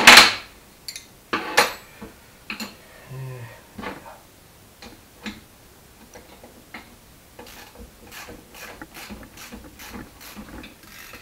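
Small steel bolts, nuts and washers clinking and clicking as they are picked up from the workbench and started by hand on a chain sprocket's hub. A sharp clatter comes right at the start and another about a second and a half in, then a run of light ticks near the end.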